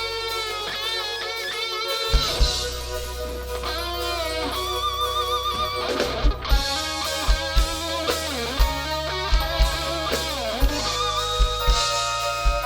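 A live rock band's instrumental break: an electric guitar plays a solo melody with vibrato and pitch bends over bass, and the kick drum comes in about two seconds in.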